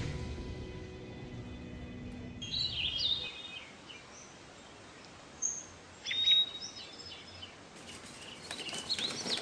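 Background music fading out over the first couple of seconds, then small birds chirping in short bursts of calls several times over a steady outdoor background noise.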